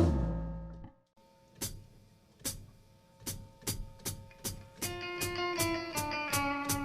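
Music: a held chord fades out, then after a short pause a drum beat starts and guitar notes join in about five seconds in.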